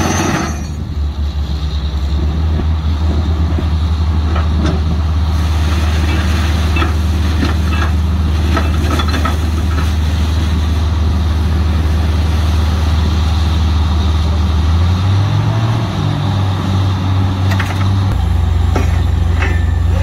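Diesel engine of a truck-mounted DTH borewell drilling rig running steadily. Its note shifts about fifteen seconds in and again near the end, with a few short clanks over it.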